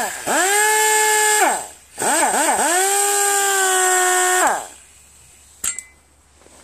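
Pneumatic cut-off tool run twice on compressed air: the whine pulses as the trigger is feathered, then the wheel spins up to a steady high whine with a hiss of exhaust air, and the pitch falls away each time it is released. A single click follows near the end.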